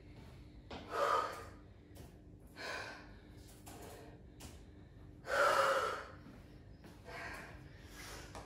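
A woman breathing hard between exercises, with four heavy breaths a couple of seconds apart, the third the loudest: she is out of breath from the workout.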